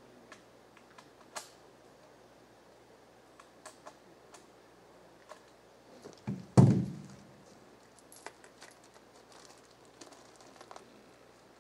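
Scattered light clicks and small rattles, with one loud thump a little past halfway that fades over about a second.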